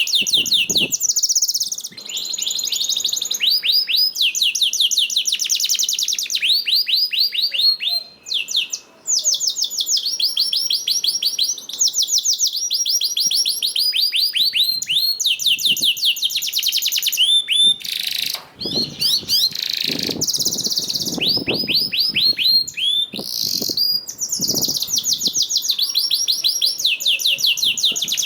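Domestic canary singing a long, fast song made of rapid trills, each a quick run of repeated falling notes, with a couple of short breaks between phrases.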